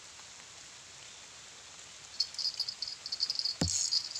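An insect chirping in a fast, high-pitched pulsing trill that starts about halfway through, over a faint steady hiss. A single sharp knock comes near the end.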